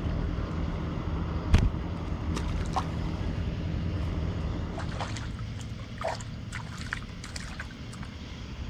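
Water sloshing and trickling, with a sharp knock about one and a half seconds in and scattered small clicks later, over a low steady hum that fades in the second half.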